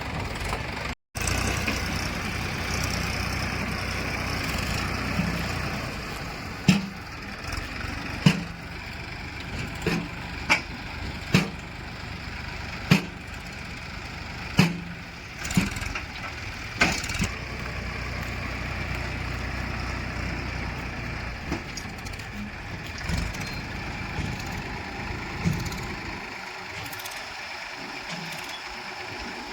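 Heavy diesel machinery engine running steadily, broken by a dozen or so sharp clanks through the middle; the engine sound drops away near the end.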